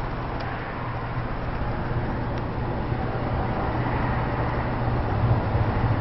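Hunter Passport II ceiling fan running, its motor giving a steady low hum under the even rush of air from the spinning blades.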